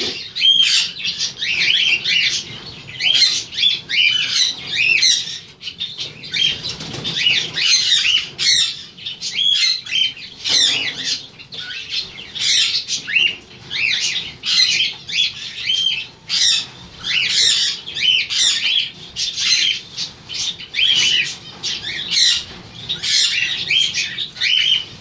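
Many caged pet birds chirping and squawking without a break, their short calls rising and falling and overlapping one another.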